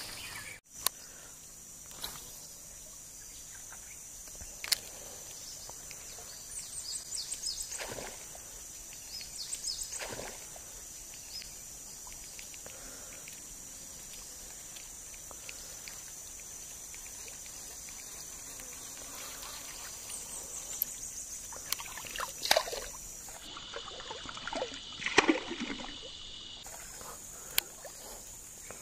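A soft frog lure is worked across shallow still water, making small splashes and sloshes in bursts, with a few sharp clicks from the baitcasting reel and rod. A steady high insect drone runs underneath.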